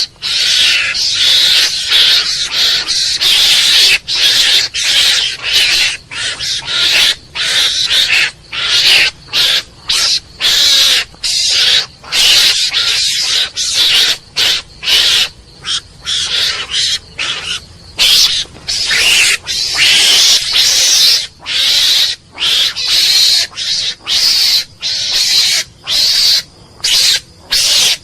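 Mongoose calling: harsh, noisy calls in a long run of short bursts with brief gaps between them.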